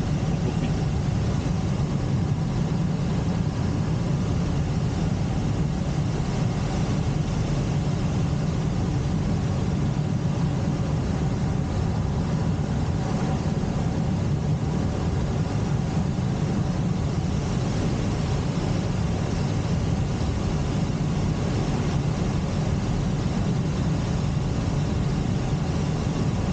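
Steady rushing and droning inside a glider's cockpit while under aerotow: air streaming over the canopy, with the tow plane's engine running ahead.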